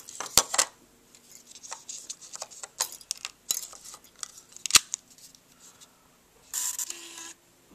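Scattered plastic clicks and taps from handling a Bluetooth headset and its stone-shaped charger, two of them sharper, about half a second and nearly five seconds in. Near the end comes a noise of about a second from the camera itself, not from the headset.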